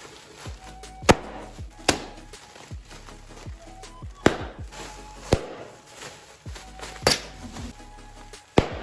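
Background music with heavy drum hits, about six strong beats spread unevenly over a low, steady backing.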